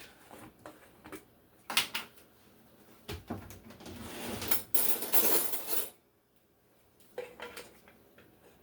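Kitchen utensils knocking and scraping against a mixing bowl as minced garlic is added to a marinade: a few light clicks, a sharp knock about three seconds in, then a couple of seconds of scraping that stops abruptly, and a few light clinks near the end.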